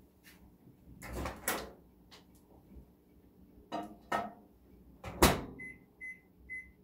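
Microwave oven being loaded: a few knocks and handling sounds, then the door shutting with a sharp latch click, followed by a quick run of short, same-pitched keypad beeps as the cooking time is entered.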